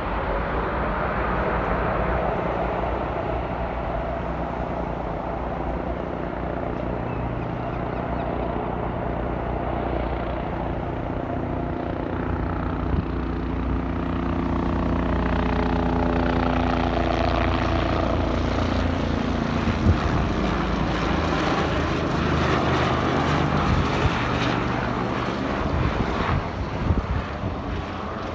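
An aircraft passing, its engines running steadily with a stack of tones that drop in pitch as it goes by, loudest in the second half before it fades near the end.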